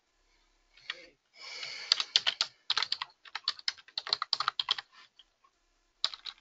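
Computer keyboard typing: quick runs of key clicks starting about two seconds in, a brief pause near five seconds, then a few more keystrokes near the end.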